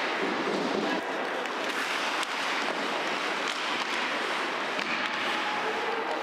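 Ice hockey game sound: a steady din of the arena and skates on the ice, broken by sharp clacks of sticks and puck.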